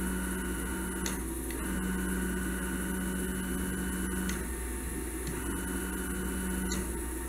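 CNC router stepper motors jogging under joystick control: a steady low whine that runs in three spells, the longest in the middle and the last one short, each start and stop marked by a click.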